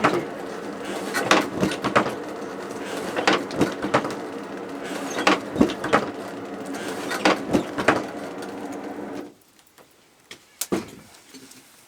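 Blacksmith's hammer striking hot steel on an anvil while forging a spade blade, the blows falling in quick groups of two or three every second or two. A steady hum runs under the blows and cuts off suddenly about nine seconds in, followed by one last strike near the end.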